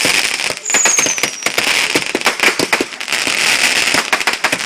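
Fireworks going off: a dense run of rapid crackling pops, with a high whistle that falls slightly in pitch about a second in.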